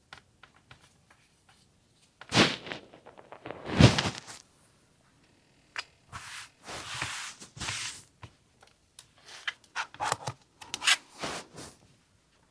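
Fabric and an acrylic quilting template being handled on a cutting table: irregular rubbing and sliding with a few light knocks, the sharpest about two and a half and four seconds in.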